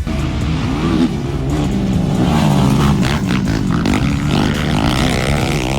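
Racing ATV engines revving hard, their pitch climbing and dropping repeatedly as they accelerate and shift.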